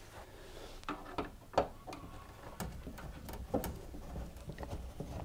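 Screwdriver working the screws that hold a tumble dryer heater to its sheet-metal back panel: a string of faint, irregular metal clicks and ticks.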